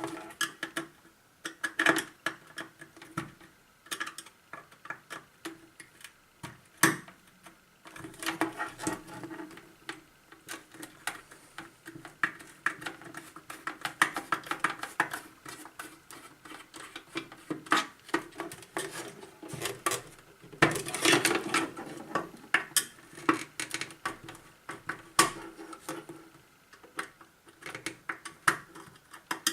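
Screws being undone with a screwdriver from the plastic housing of an LED disco light: a run of irregular clicks and light knocks, busiest about two thirds of the way through.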